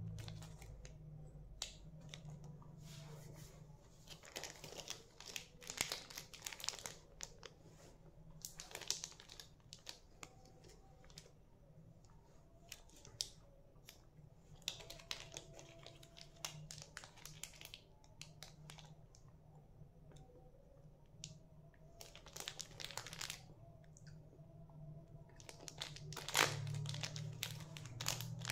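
Small plastic candy wrappers crinkling and tearing as they are handled and opened, in several short bursts, the loudest near the end.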